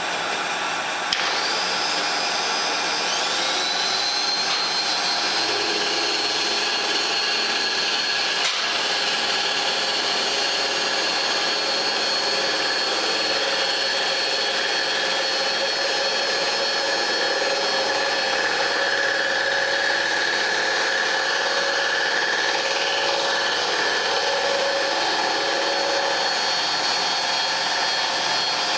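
A milling machine facing an aluminium plate, running steadily. A click comes about a second in, and then a high whine rises over the next couple of seconds to a steady pitch that holds.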